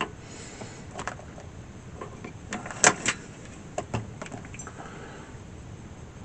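A few light clicks and taps from small crimp-connector parts being handled, the loudest a pair of clicks about three seconds in.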